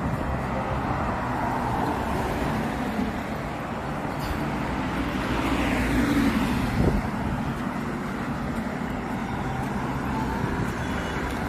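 Road traffic: a steady hum of passing cars, with one vehicle swelling up and going by close about six seconds in.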